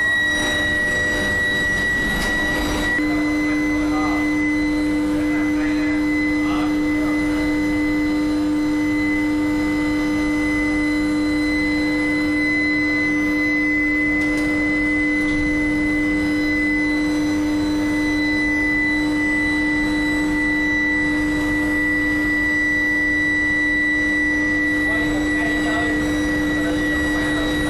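Industrial induction billet heating furnace running: a steady, continuous machine whine made of several held tones. The pitch shifts slightly about three seconds in.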